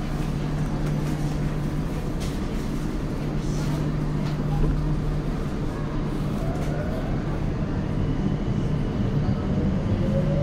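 Tokyo Metro 02 series subway train heard from on board: a steady low hum. Near the end the motor whine begins to rise in pitch as the train accelerates.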